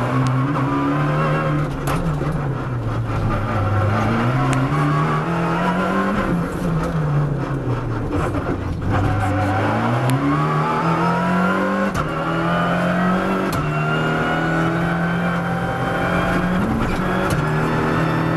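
Abarth 500 R3T rally car's turbocharged four-cylinder engine heard from inside the cabin. It revs up and down through gear changes as the car slows for a tight section, then pulls hard in gear after gear. In the second half a high whine climbs steadily as the speed builds.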